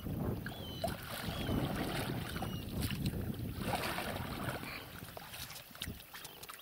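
Paddles dipping and splashing as an inflatable rowboat is rowed in to the bank, with water sloshing and a few knocks.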